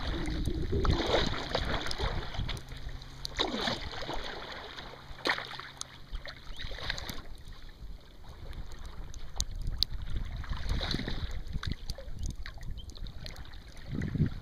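Wooden Greenland paddle strokes dipping into and pulling through the water from a sea kayak, with splashes and sharp drips off the blades, over wind buffeting the microphone.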